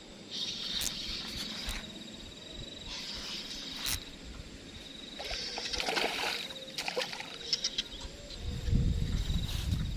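Insects buzzing steadily in a high, thin tone, with louder bursts of buzzing every few seconds. A low rumble comes in near the end.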